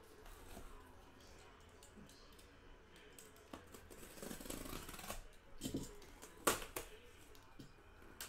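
Safety box cutter slicing through the packing tape on a cardboard case, a scraping cut about four seconds in. It is followed by a few sharp clicks and taps on the cardboard, the loudest about six and a half seconds in.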